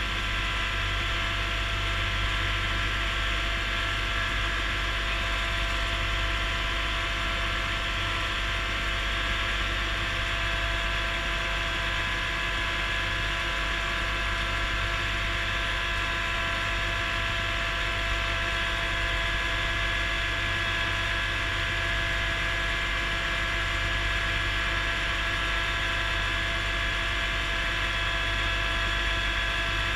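Kubota B7610 compact tractor's diesel engine running steadily with a whine of gears, heard from inside its cab as it drives through snow.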